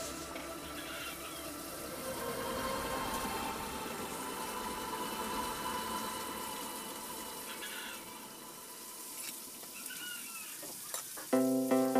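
Hands and a small trowel working wet cement inside a concrete sink basin, a steady scraping and rubbing. Background music with a steady beat comes in loudly near the end.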